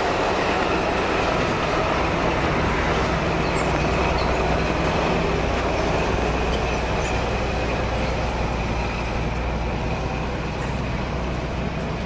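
Freight train passing through at speed: the steady rolling rumble of wagons on the rails, with a faint high steady ring over it, easing slightly near the end.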